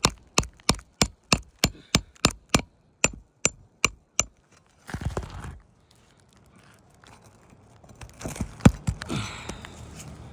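Hammer tapping quickly and evenly on a steel snake tool wedged under an asphalt shingle, about three strikes a second for the first four seconds, to drive the bar in and work out a roofing nail. Then a short scrape about five seconds in, and near the end a louder scrape with one sharp knock as the tool is worked against the shingles.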